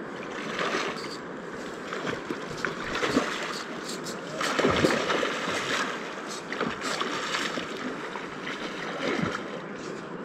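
Rushing river water, with several louder swells of splashing water.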